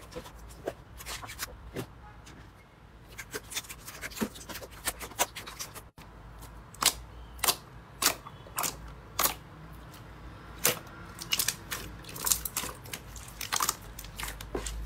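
Hands pressing, poking and stretching a clear jelly slime, with irregular sharp clicks and pops of trapped air.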